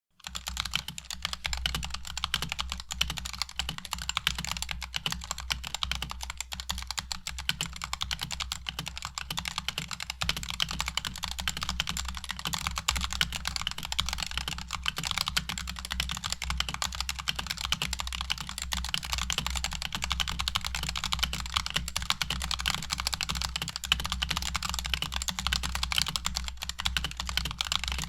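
Fast, continuous typing on a stock Razer Huntsman TE keyboard with unlubed Razer red linear optical switches and no case foam, a dense stream of key clacks. A steady low hum sits underneath.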